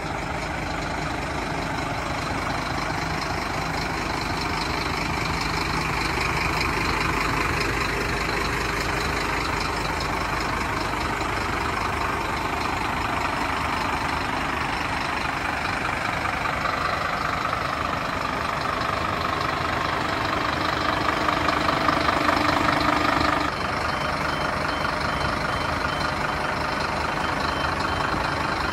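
Scania P310 tipper's five-cylinder diesel engine idling steadily. About three-quarters of the way through it grows louder for a few seconds, then drops back suddenly, and a faint regular beeping follows.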